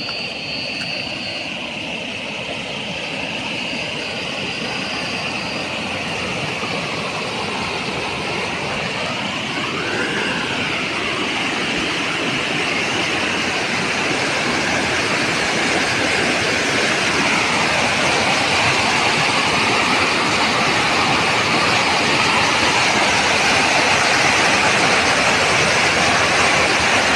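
A creek in flood: muddy floodwater rushing and churning in a steady loud noise that grows louder as the microphone nears the torrent.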